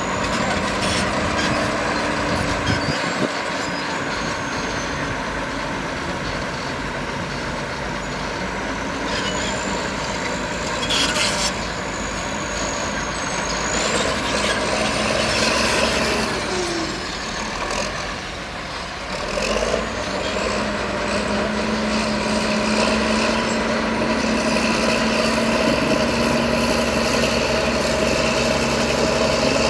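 Engine of heavy earthmoving machinery running steadily, with a faint high whine that rises and falls.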